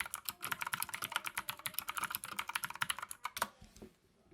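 Fast typing on a Plugable full-size mechanical keyboard with blue clicky switches: a rapid run of sharp key clicks that stops a little after three seconds in.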